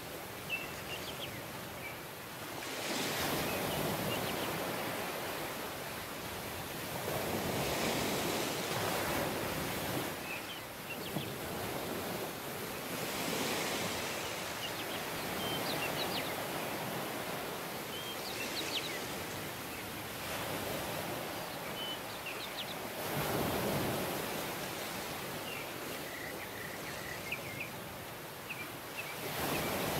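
Ocean waves washing onto a shore, a steady surf rush that swells every few seconds as each wave breaks, with faint high chirps over it.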